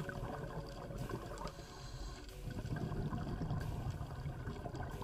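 Underwater sound picked up through a dive camera's housing: a low watery rush with irregular crackling and bubbling, swelling a little in the second half.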